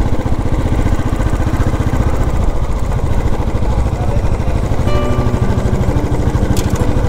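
Royal Enfield Desert Storm's single-cylinder engine running steadily under way, a rapid even beat of firing pulses. Background music comes in about five seconds in.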